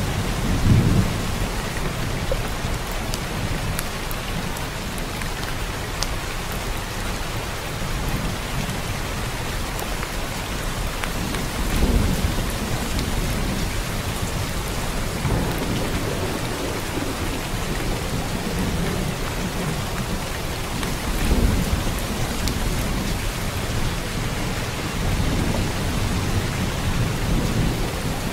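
Steady rain with low rolling thunder rumbles; the thunder swells several times, most strongly about a second in, around twelve seconds in and around twenty-one seconds in.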